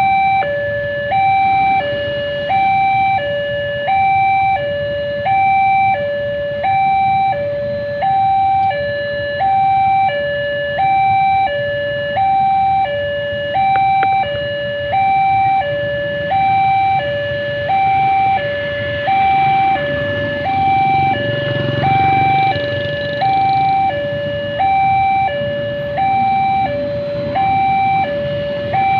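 Railway level-crossing warning siren sounding a steady two-tone alarm, a high and a low tone taking turns about every three-quarters of a second. A low rumble swells under it about twenty seconds in and fades again.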